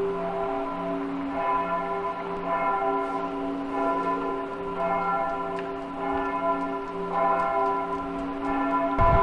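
Church bells pealing: several bells struck one after another, each stroke ringing on so that their tones overlap. A brief low thump comes near the end.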